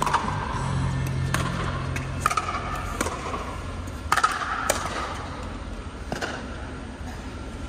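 Pickleball paddles striking a plastic pickleball during a rally: a run of sharp pops, roughly one a second, with two quick hits close together about four seconds in. A steady low hum runs underneath.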